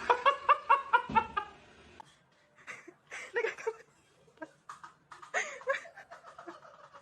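A person laughing, with a quick run of about five 'ha' bursts a second in the first second and a half, followed by scattered shorter giggles.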